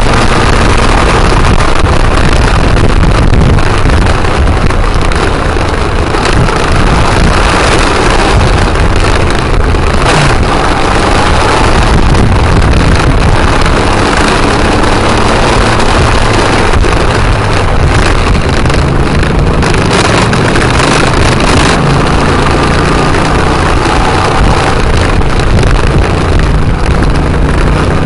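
Motorcycle engine running steadily at road speed, mixed with loud wind rushing over the bike-mounted microphone.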